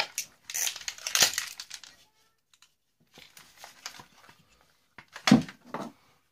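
Plastic housing of a steam iron being handled and prised apart: crackling and clicking plastic, with a louder knock about five seconds in.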